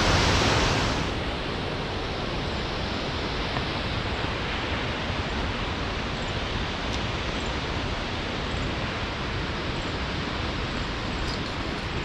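Steady rushing of a waterfall and its stream, louder and brighter for about the first second, then a little softer and duller.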